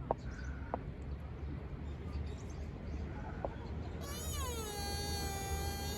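A deer calling: about four seconds in, one long high-pitched call that falls in pitch and then holds steady, over a low hum.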